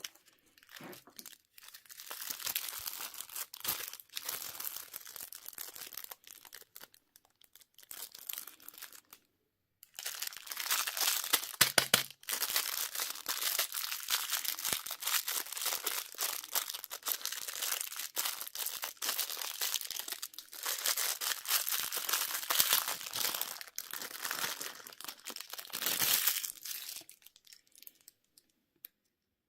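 Candy wrapper being crinkled and torn open by hand: a dense crackling that pauses briefly about nine seconds in, resumes, and stops a couple of seconds before the end.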